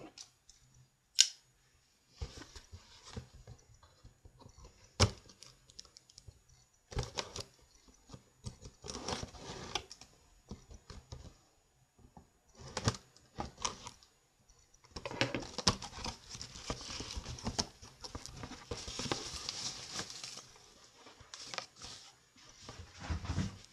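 A cardboard shipping box being opened by hand: sharp snaps and tearing of tape and flaps, then a long stretch of rustling as the styrofoam packing inside is dug through.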